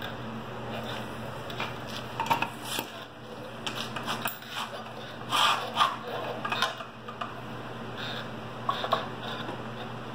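Scattered clinks, clicks and knocks of metal fittings and a hand air pump being handled while a pressure-test hose is connected to an outboard lower unit's test fitting, over a steady low hum.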